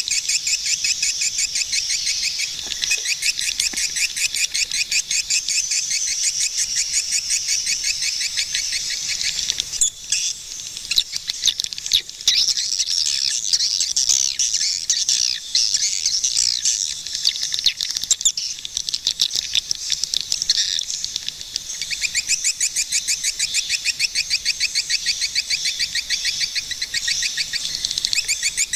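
Swiftlets chirping in a fast, even run of high chirps, several a second. Midway the calls grow denser and more irregular, with a few louder chirps, before the even run returns.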